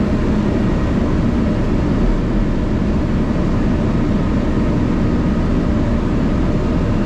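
Truck running on the road, a steady low drone of engine and road noise heard from inside the cab.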